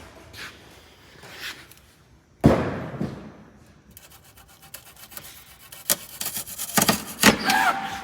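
Shipping straps on a Can-Am Maverick R side-by-side being cut and worked loose so the suspension extends: a heavy thump about two and a half seconds in, then a long stretch of rubbing and scraping with several loud knocks near the end.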